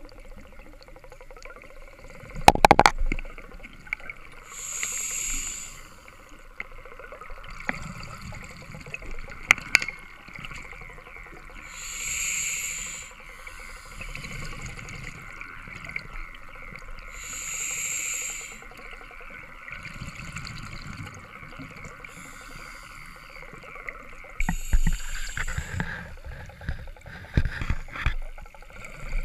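Diver breathing underwater on an open-circuit scuba regulator: exhaled bubbles rush out in bursts about every six seconds over a steady hiss. A few sharp knocks, and busier bubbling and knocking near the end.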